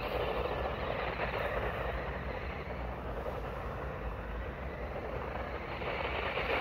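A vehicle driving and sliding on a loose gravel track, tyres churning the gravel, fading as it moves away and staying distant, then growing louder near the end as it comes back.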